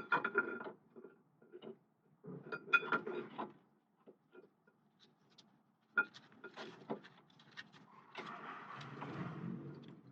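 Scattered metal clinks, taps and rattles from tools and brake hardware being handled, coming in a few short clusters, with a softer, longer rustle near the end.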